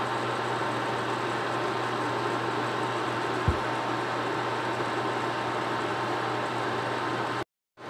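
Steady hum and hiss of a glass-top electric cooktop running under a lidded stainless-steel pot, with a faint high whine. One dull thump about three and a half seconds in.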